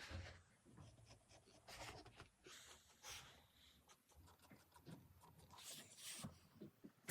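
Mechanical pencil scratching on paper in short, irregular strokes, faint.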